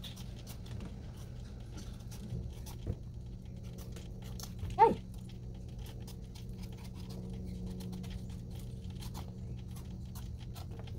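A knife paring the skin off a green mango, with faint scraping clicks as the blade works around the fruit, over a steady low hum. About five seconds in there is one short cry, 'Ay!', falling in pitch.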